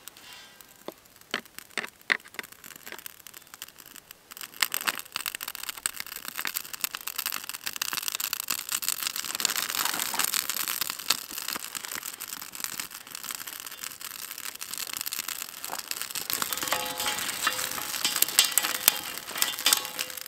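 Birch bark and a wax-and-lint fire starter burning on split kindling, crackling and hissing with many sharp pops, growing louder about four seconds in as the flames take hold. Near the end dry twigs rustle and snap as they are piled onto the fire.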